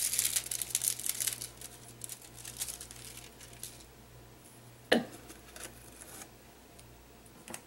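Thin sheet of heat-transfer foil crinkling as it is peeled off a foiled cardstock card front. The crinkling is busiest in the first second and a half, then a few lighter rustles follow. A single sharp tap comes about five seconds in, with a fainter click near the end.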